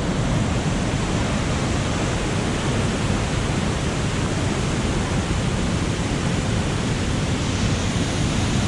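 Waterfall pouring in a steady rush of falling water, the monsoon-fed fall running high after rain.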